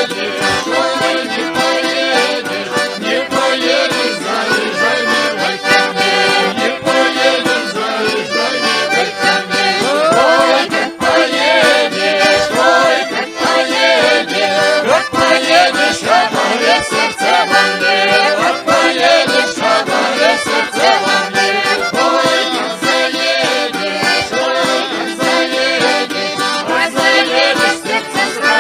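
Accordion music, a tune played without a break.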